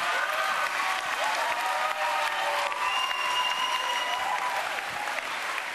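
Studio audience applauding, with a few voices calling out over the clapping.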